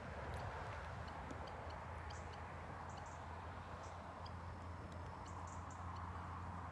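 Faint lakeshore ambience: a soft steady hiss over a low rumble, with scattered short high chirps of small birds.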